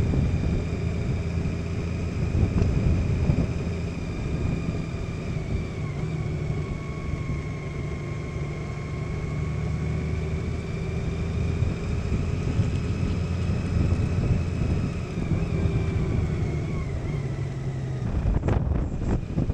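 Honda Gold Wing flat-six engine running at a steady road speed, with road and wind noise and a thin steady whine above the engine drone. About 18 seconds in the engine sound drops out and gives way to wind buffeting on the microphone.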